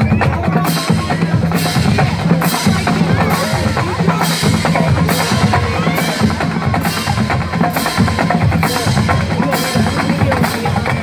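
High school marching band's drumline playing a steady driving beat on bass and snare drums, with a bright, sharp hit on each beat about every two-thirds of a second.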